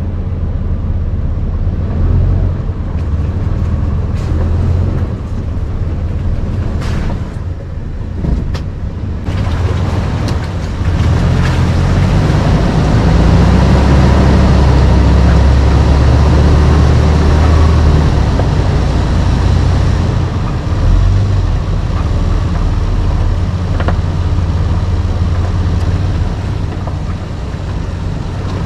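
Toyota Land Cruiser 80 series' 4.5-litre straight-six engine working off-road, with a few knocks about a quarter of the way in. The engine grows louder from about a third of the way in, holds there for several seconds, then eases off.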